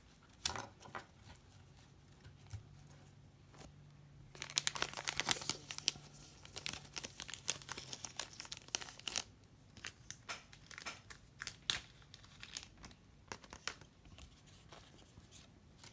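Clear plastic wrapping on a stack of baseball cards crinkling and tearing as it is opened, a dense run of crackles about four to nine seconds in, loudest near the start of that run, then scattered crackles as the cards are handled.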